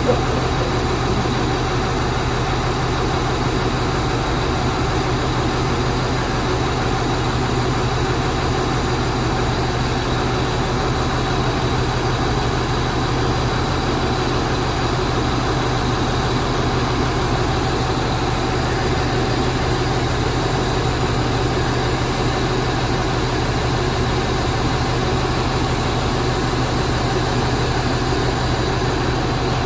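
Four-axle truck's diesel engine running steadily at an even speed, with a constant low hum.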